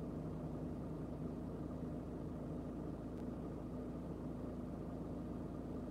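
Steady low hum inside a parked van's cab, with a faint steady tone running through it: the van's engine idling.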